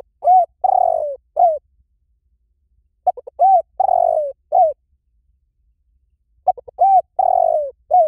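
Spotted dove cooing in three phrases about three seconds apart. Each phrase is a quick stutter of short coos, a longer drawn-out coo that falls in pitch at its end, and a final short coo.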